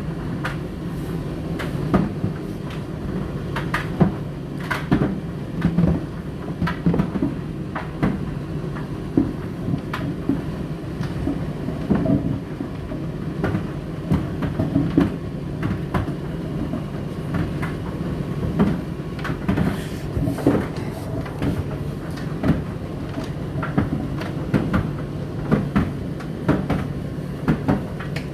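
Indesit IDC8T3 condenser tumble dryer running: a steady motor hum with frequent irregular knocks and clicks as the laundry tumbles in the drum.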